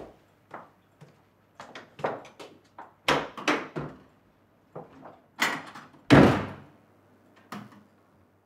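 A string of irregular knocks and bangs, a dozen or so, each with a short ringing tail. The loudest two come about five and six seconds in, and it goes quiet near the end.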